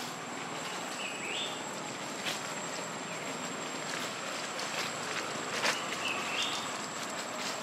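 Dry leaf litter rustling and crackling as macaques move over the forest floor, with a few sharp crackles, over a steady high-pitched drone. Two short high chirping calls, one about a second in and one near six seconds.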